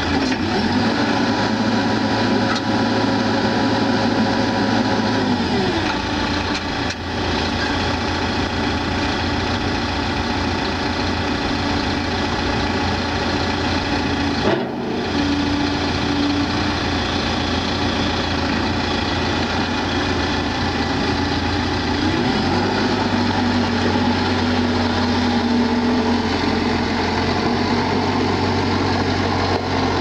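2013 Terex TLB840 backhoe loader's diesel engine running as the machine manoeuvres. Engine speed drops about five seconds in and rises again a little after twenty seconds, with a brief break in the sound near the middle.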